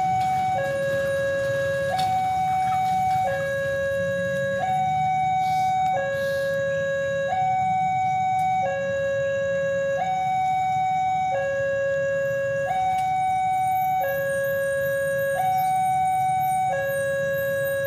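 Railway level-crossing warning alarm sounding a steady two-tone pattern, switching between a lower and a higher tone about every second and a quarter. It warns that a train is approaching the crossing. A low steady rumble runs beneath it.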